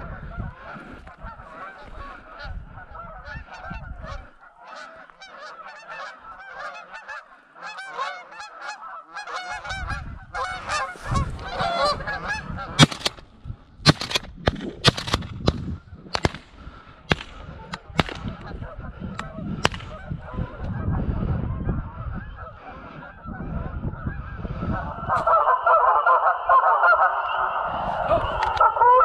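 A flock of geese honking overhead, a dense overlapping chorus that thins through the middle and swells again near the end. A run of sharp clicks and knocks comes through the middle.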